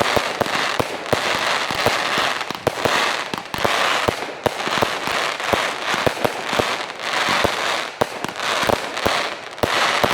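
Fireworks display: many sharp bangs of bursting shells over a dense, continuous crackle.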